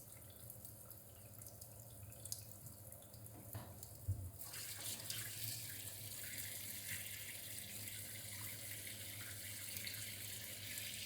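Hot water running from the propane-heated supply, a steady hiss that comes up louder about four seconds in.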